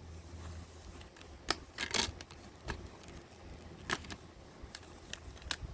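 Plastic DVD case being handled and opened: scattered sharp clicks and taps of the case and discs, over a low steady hum.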